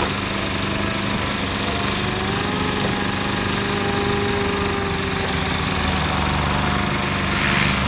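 SAB Goblin 700 RC helicopter flying 3D aerobatics, its rotor and motor whine running steadily with tones that slowly rise and fall in pitch as the head speed and load change through the manoeuvres.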